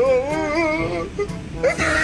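Background music with a singing voice holding a long wavering note for about the first second.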